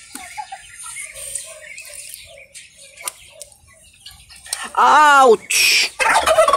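Faint rustling in the nest straw, then near the end a man cries out in pain ("ouch") as a broody mother goose bites his hand. A short, sharp hiss follows.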